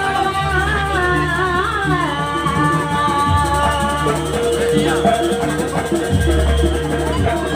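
Jaranan ensemble music played live: a melody line that wavers and glides in the first two seconds, then holds steadier notes, over continuous low accompaniment, with a shaker or rattle in the mix.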